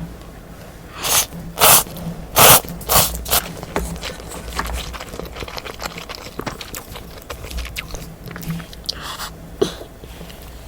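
Loud slurping of Buldak spicy instant noodles in four or five quick pulls about a second in, followed by softer chewing and wet mouth sounds.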